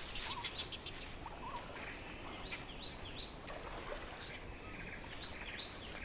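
Faint wild outdoor ambience with scattered short bird chirps, several in quick runs, over a thin steady high tone.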